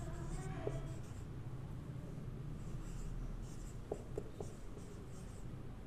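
Marker pen writing on a whiteboard: faint, short scratchy strokes, with a few light clicks about four seconds in.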